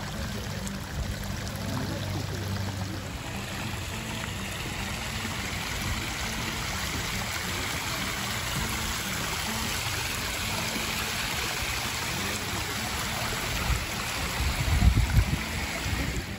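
Hot spring water flowing and trickling over mineral terraces, a steady rushing hiss. There are a few low rumbles near the end.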